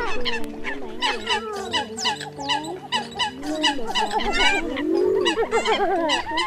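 A dense chorus of Eurasian coots calling, with many short sharp calls overlapping several times a second, some of them sliding in pitch. This is a lure recording of coot calls used to draw wild coots in for catching.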